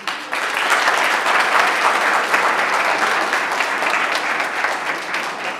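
Audience applauding, many hands clapping at once, starting right away and fading near the end.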